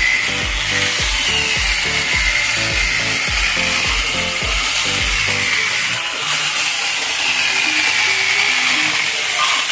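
Small corded electric chainsaw running as it cuts into a log: a steady, high motor whine that wavers in pitch as it works. Background music with a steady beat plays under it and stops a little past halfway.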